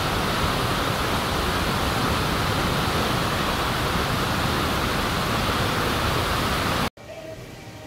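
Steady, loud rush of falling water that cuts off suddenly about seven seconds in, leaving a much quieter background.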